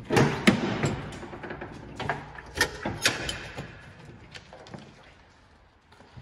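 Clanks and knocks of a pickup truck's rear canopy and dog-box doors being opened and handled, with a dog moving about in the box. A quick run of sharp bangs comes in the first three seconds, then the noise fades.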